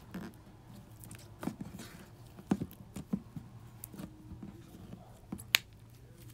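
Hand-kneaded homemade slime made of styrofoam melted in nail polish remover with Model Magic clay worked in, squeezed and pulled by the fingers: soft, sticky squishes and small irregular clicks, with one sharper click about five and a half seconds in.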